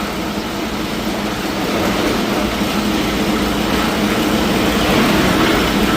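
Small hydraulic rock drill running steadily, a continuous mechanical drone with a low hum.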